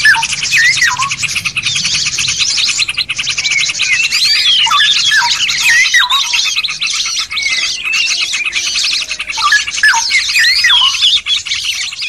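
Dense mixed chorus of songbirds: a fast, unbroken chattering trill with many whistled and swooping calls over it. This is birdsong recorded for masteran, used to teach captive songbirds new song.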